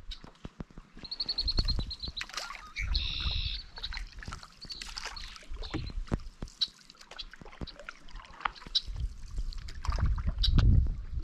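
Canoe paddles dipping and pulling through lake water, with small knocks and splashes, while gusts of wind buffet the microphone, loudest near the end. A bird gives a quick run of high repeated notes about a second in and a short high warble soon after.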